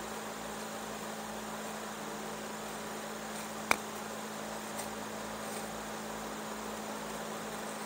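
Steady electrical hum with a faint hiss, and one sharp click a little under four seconds in.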